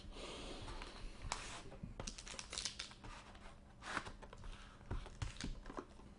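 Plastic wrapping crinkling for about the first second as a Panini Gold Standard football hobby box is unwrapped. Then the cardboard box is slid open and handled, with scrapes and a few sharp knocks of cardboard on the table.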